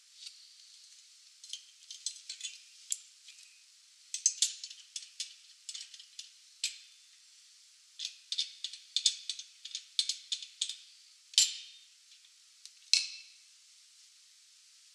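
Irregular sharp metallic clicks and clinks from a coil-spring strut and the spring compressor's jaws being handled, coming in clusters with short gaps between. The sound is thin and tinny.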